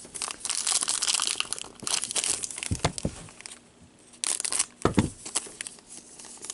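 Hockey card pack wrapper crinkling as it is handled and cut open with scissors, in several rustling spells, with two dull knocks.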